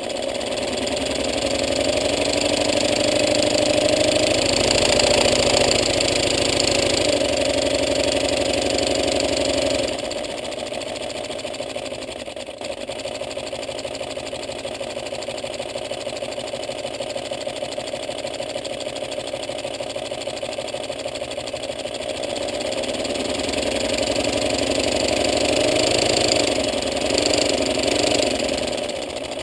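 LEGO pneumatic single-cylinder engine running fast on compressed air from a hand-held blow gun: a rapid, even clatter with air hissing. It is louder for about the first ten seconds, drops back, then picks up again near the end.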